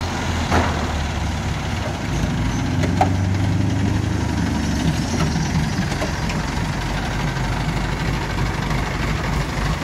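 Mobile crane's engine running steadily at low speed, with two short sharp knocks, one near the start and one about three seconds in.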